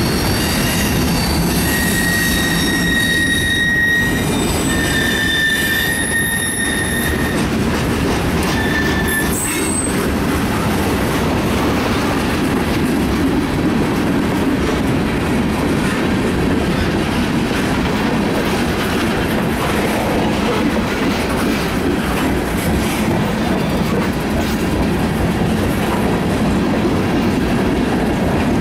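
CSX mixed freight train of tank cars and hoppers rolling past, its wheels running steadily over the rails. For about the first ten seconds, wheel flanges squeal in high, thin, drawn-out tones, which then stop while the rolling noise goes on.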